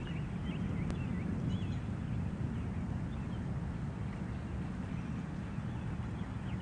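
Continuous low rolling thunder, rumbling on without a break; the recordist later wondered whether some of this constant rumble was a distant tornado. A few faint bird chirps sound in the first couple of seconds.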